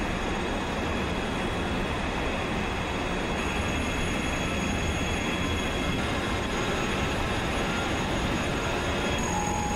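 Steady, even running noise of steel coil processing line machinery, with a few faint steady high-pitched tones above it.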